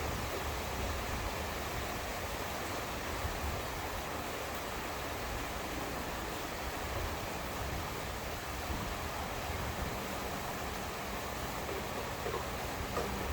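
Steady rain falling, an even hiss with a few small ticks near the end.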